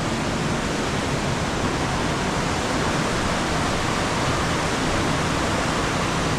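Waterfall on the Amnicon River, water rushing over the rock in a loud, steady roar.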